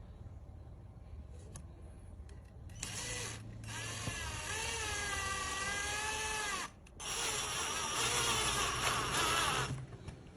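A handheld power tool running in two bursts of about four and three seconds, with a brief stop between; its motor pitch wavers up and down as it runs.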